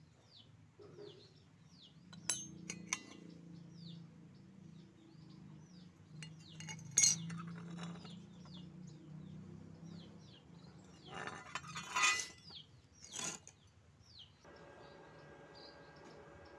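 Steel plate pieces clinking and tapping against each other as they are handled, with a few sharp metallic clinks, the loudest about seven and twelve seconds in. Small birds chirp over it throughout, and a steady hum starts near the end.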